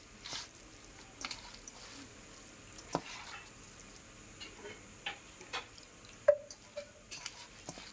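Soaked flattened-rice (chuda) mixture being stirred and mixed in a bowl: scattered light clicks and taps, the sharpest about six seconds in.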